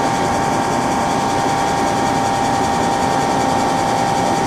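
Hardinge Conquest T42SP CNC lathe running steadily: an even mechanical hum with a steady high whine. It is very quiet and smooth, which is taken as the sign of a well-maintained machine.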